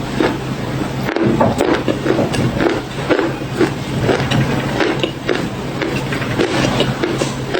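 Close-miked crunching and chewing of crunchy chocolate-flavoured cookie bars: a dense, irregular run of crisp crunches, several a second, over a steady low hum.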